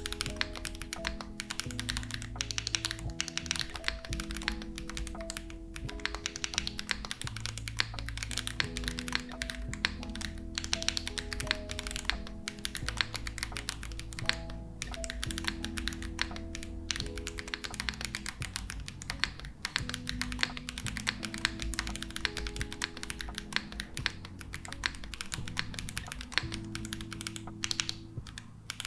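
Continuous typing on a Space80 Apollo mechanical keyboard with Nezuko switches, GMK keycaps, a polycarbonate plate and silicone plate foam: a steady stream of rapid key clacks, heard over background music with a bass line.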